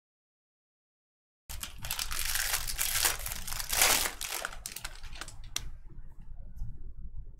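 Foil wrapper of a Bowman Draft baseball card pack torn open and crinkled, starting after about a second and a half of dead silence. It is loudest in the first couple of seconds, then gives way to softer rustling and clicks as the cards are handled.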